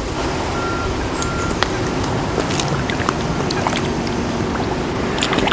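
Hooked carp being played in close at the lake margin, with small splashes and clicks from the fish and tackle scattered over a steady outdoor hiss. Two short, even-pitched beeps come about half a second and a second in.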